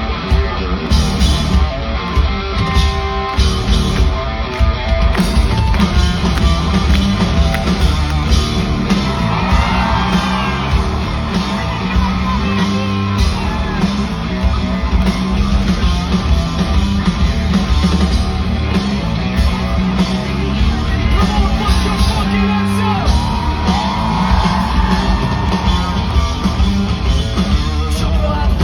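A rock band playing live at full volume, with heavy bass and drums and guitar, and voices singing and yelling over it.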